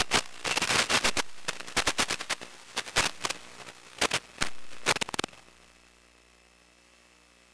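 Crackling radio static from a 1.3 GHz analog video downlink, heard as irregular loud pops and crackles while the signal breaks up. About five seconds in the crackling stops suddenly, leaving a faint steady hum.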